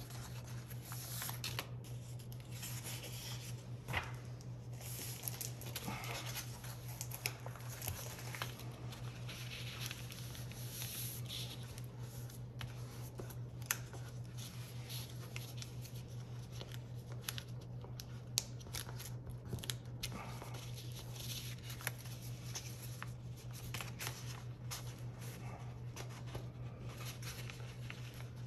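A paper airplane being folded by hand: the sheet rustles and crinkles as its folds are pressed and creased, with many short, sharp crackles scattered throughout. A steady low hum sits underneath.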